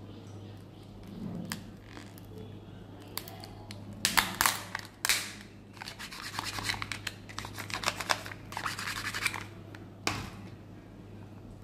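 Foil and plastic packaging of a surprise egg handled close up: scratching and crinkling as the foil seal is peeled, loud crackly rustling about four seconds in, then a quick run of small clicks and one sharp plastic click near the end, over a steady low hum.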